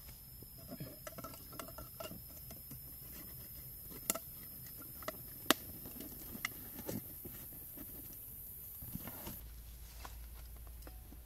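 Light tapping, scraping and rustling of a plastic tube being worked against a cardboard carton, with two sharp clicks about four and five and a half seconds in.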